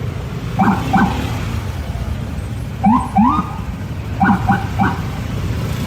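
Car horn giving short, bending-pitch honks over and over: two, then two rising ones, then three quick ones, over a steady low traffic rumble.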